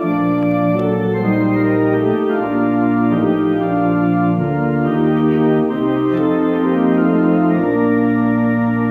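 Organ playing slow, sustained hymn chords over low bass notes, the harmony changing about every second.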